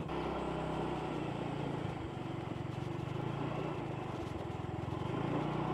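Small motorbike engine running steadily at an even speed, with an even pulse and a background hiss of road noise.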